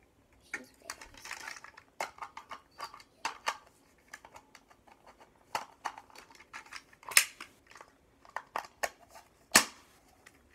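A small plastic LOL doll and its tiny accessories being handled by hand: an uneven run of light plastic clicks and snaps with some rustling, the two sharpest clicks about seven and nine and a half seconds in.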